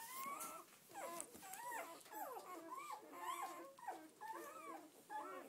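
A litter of newborn red Doberman pinscher puppies squeaking and whimpering: many short, thin cries that rise and fall in pitch and overlap one another.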